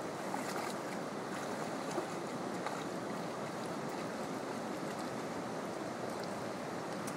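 Steady rushing of river water, with a few small, light splashes from a dog wading through it.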